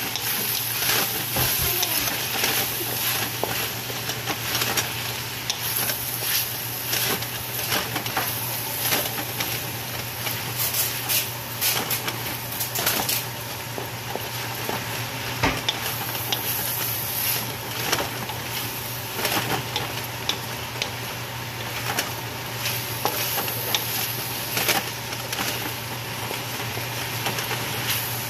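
Pork, carrots and green beans sizzling in a hot metal wok as they are stir-fried, with a spatula scraping and clicking against the wok again and again, over a steady low hum.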